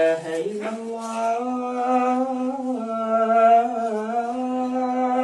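A man's voice chanting a religious recitation in long, drawn-out melodic notes, stepping up in pitch near the start and sliding down and back up a couple of times.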